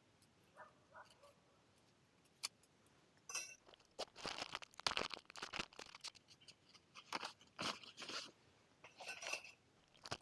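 Irregular crunches and scrapes with a few light clinks, coming in clusters from about three seconds in.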